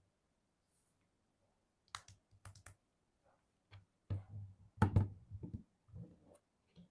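Scattered clicks, taps and soft knocks of hands handling objects, a group about two seconds in and louder knocks about five seconds in.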